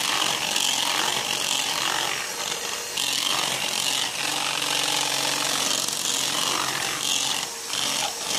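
Electric hand mixer running steadily, its twin beaters whisking eggs in a plastic bowl, the start of beating the eggs until fluffy for a sponge cake.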